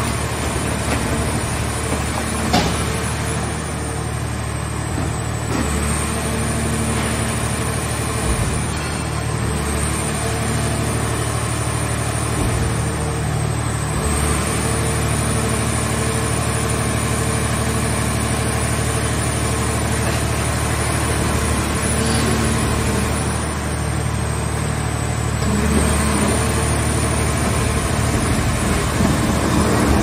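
Hydraulic scrap car shell baler running steadily through a pressing cycle, its lid and compression rams moving. A high whine above the drone sags and recovers several times, and there is one sharp metallic knock a couple of seconds in.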